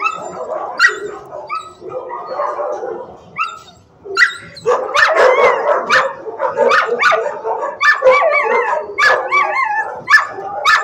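Shelter dogs barking, sharp repeated barks with high wavering whines and yips mixed in; after a short lull a little before halfway, the barking grows dense.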